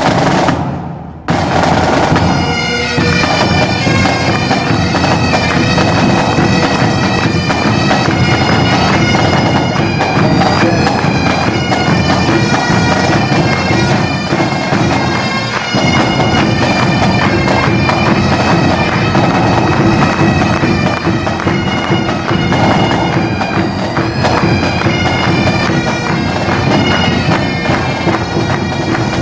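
A pipe band playing: Great Highland bagpipes with their steady drones under the chanter melody, accompanied by snare, tenor and bass drums. The full band sound comes in about a second in.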